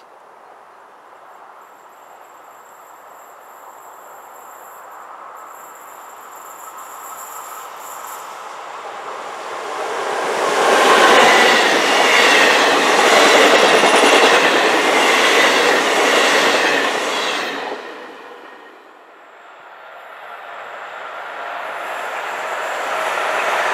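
A passenger train of Italian coaches approaching and passing close by: the rail and wheel noise builds over about ten seconds, is loud for about seven, then drops away. After that an ÖBB class 1293 Vectron electric locomotive hauling a container freight train is heard approaching, growing steadily louder.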